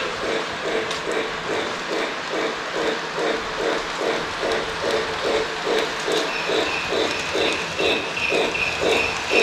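Lionel O-gauge model steam locomotive chuffing steadily, a little under three chuffs a second, over the steady rolling noise of the train on its track.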